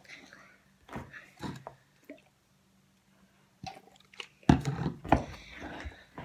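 Thick white homemade slime being stirred with a wooden stick in a bowl and squeezed by hand: irregular wet squishes and sticky pops, the loudest cluster a little past the middle.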